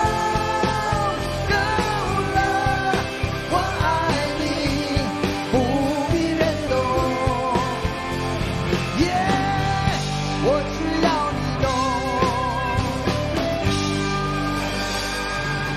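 Live pop-rock band playing: drums, electric and acoustic guitars and keyboards, under a lead melody that bends and wavers in pitch.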